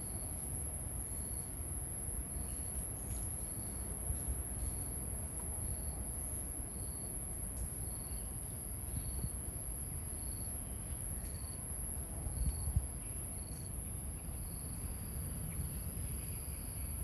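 Insects calling: a continuous high-pitched trill, with a second insect giving short chirps about once a second over it.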